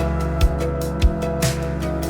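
Background music with a steady beat and sustained pitched tones.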